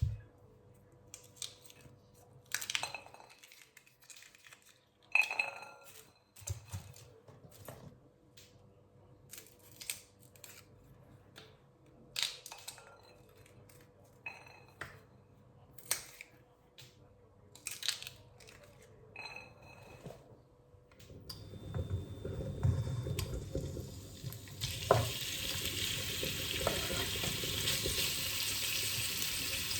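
Kitchen clatter: scattered knocks and clinks of dishes, pots and utensils about every second or two. About two-thirds of the way in, a steady sizzle of food frying in a pan starts, grows louder and holds.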